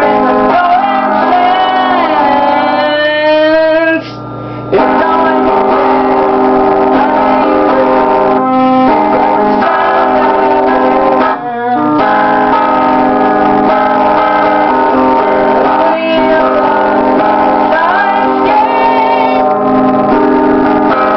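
Music: sustained piano- or keyboard-like chords with a singing voice gliding up and down near the start and again near the end. The music drops away briefly about four seconds in.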